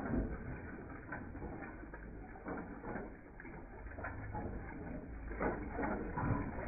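Antique Domestic stationary gas engine running and driving its geared water pump: a steady low hum under a clatter of gears and pump linkage, with uneven heavier knocks every second or so.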